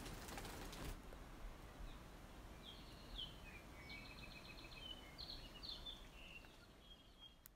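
Faint outdoor ambience with small birds chirping: a few short, high, down-slurred notes and a quick trill, fading out near the end.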